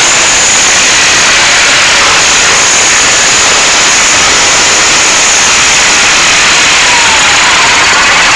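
SMD-18 four-cylinder tractor diesel running loudly on its first start, a harsh steady clatter, with a faint whine falling in pitch about six seconds in.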